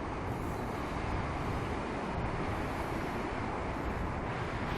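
Wind buffeting the microphone on an open beach, a steady rushing noise with a heavy low rumble.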